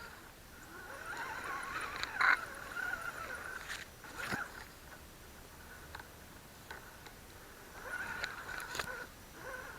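Electric motor and gearbox of an Axial Wraith RC rock crawler whining as it drives in short bursts, the whine rising and falling with throttle, with scattered knocks and clicks from the tyres and chassis climbing over rocks.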